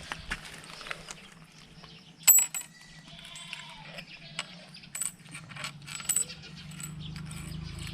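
Metal coins clinking and rattling as monkeys handle and play with them: a series of sharp clinks, the loudest about two seconds in, with more around five and six seconds.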